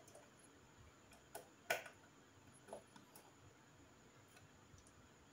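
A handful of faint, sharp clicks from a screwdriver turning out the screws that hold an ultrasonic nebulizer's control circuit board in its plastic housing. The loudest click comes just under two seconds in.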